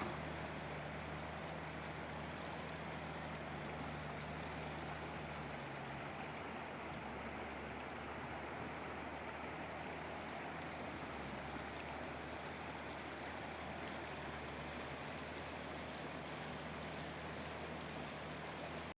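Steady rush of flowing water, with a low hum that drops away about six seconds in and comes back later.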